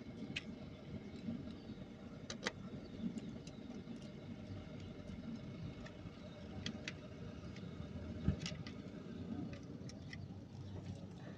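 Small metallic clicks and clinks from hand work on an alternator's wiring and terminals, a few at a time, over a steady low rumble.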